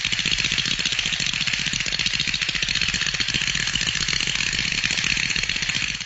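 Cartoon library sound effect: a loud, steady, fast mechanical rattle like a small motor or a hammering machine. It keeps an even pace and stops abruptly at the end.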